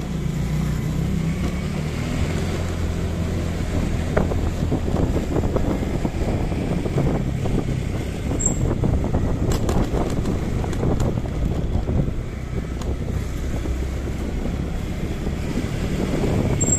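Motorcycle engine running steadily at low riding speed, its pitch stepping up and down a little as the throttle changes.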